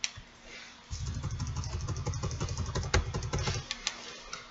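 Computer mouse clicking rapidly over a low rumble for a few seconds, starting about a second in, with a few single clicks around it.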